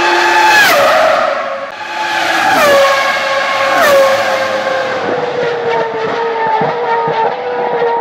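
Ferrari Formula 1 car's V10 engine at high revs, downshifting three times in quick succession under braking. Each shift is a sudden drop in pitch with a sharp crack. It then runs on at a lower, slowly falling pitch.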